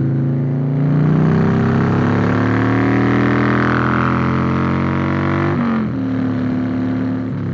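Harley-Davidson Fat Boy's 96-cubic-inch Twin Cam V-twin, fitted with horsepower cams and Vance & Hines Big Radius dual exhaust, pulling hard under acceleration: the revs climb steadily, then drop sharply at an upshift about two-thirds of the way in and hold steady after.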